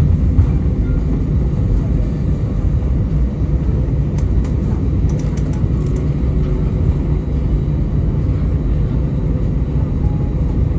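Steady low rumble inside an Airbus A320 cabin from its engines and rolling gear as it moves onto the runway for takeoff, with a few faint ticks about four to six seconds in.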